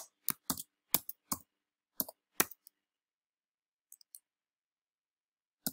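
Typing on a computer keyboard: about nine separate keystrokes over the first two and a half seconds, then a pause of about three seconds, with one more keystroke at the very end.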